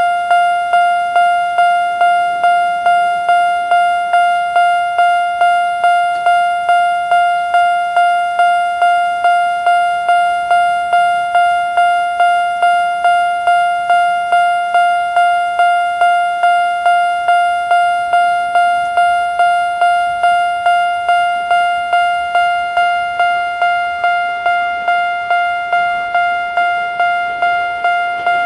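Japanese railway level-crossing alarm sounding a single-tone electronic bell: one steady pitched ding repeated about twice a second, each stroke fading before the next. It warns that a train is approaching and the crossing is closing.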